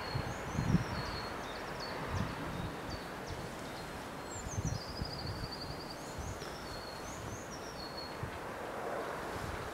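Wind buffeting the microphone in irregular gusts, strongest in the first second, with small songbirds repeating short high chirps and one trill about five seconds in.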